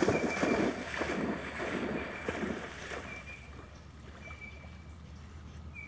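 A puppy's legs splashing through shallow pond water in a quick string of splashes. The splashes die away after about two and a half seconds as it reaches the grassy bank.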